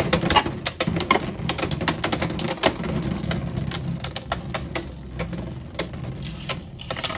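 Two Beyblade X tops spinning in a plastic stadium: a steady whir with rapid, irregular plastic clicks and clacks as they skid and strike each other and the stadium. The clatter is busiest in the first few seconds and thins out toward the end.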